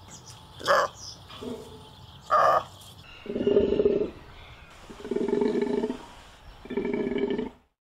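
Golden takin calling: a few short calls, then three longer, lower calls of about a second each, evenly spaced.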